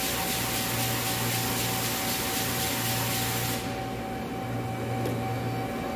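CNC lathe running: a steady machine hum with a constant mid-pitched tone, under a loud spraying hiss that cuts off about three and a half seconds in.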